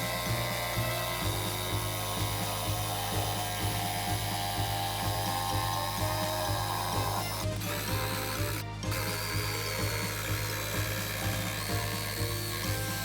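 Background music with a steady beat, with mechanical power-tool and ratchet-like working noise mixed in beneath it.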